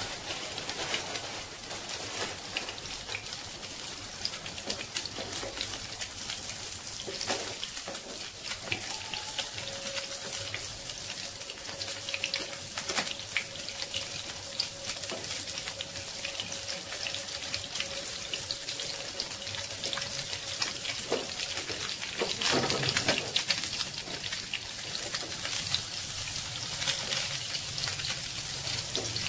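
Hot oil sizzling and crackling steadily under a flat shredded-vegetable patty frying in a non-stick pan.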